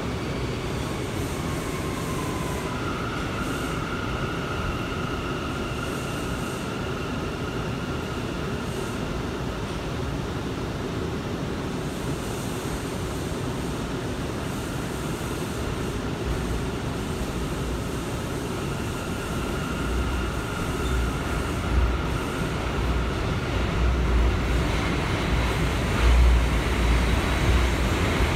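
Inside a New York City subway car as the train runs: a steady rumble with a faint high whine that comes and goes. The low rumble grows louder and rougher over the last several seconds.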